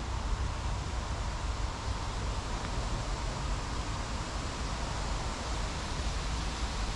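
Steady wind rumbling on the microphone, with a rustle like leaves moving in the wind; no distinct events stand out.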